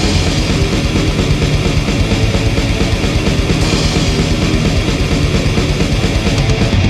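Death metal recording: heavily distorted guitars and drums playing fast and dense, at a steady, loud level throughout.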